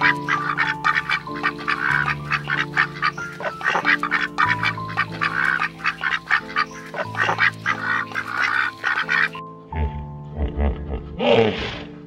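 A flock of white domestic geese calling with many short, rapid honks over background music with held notes. About nine and a half seconds in the calls stop, and one louder call that rises and falls comes near the end.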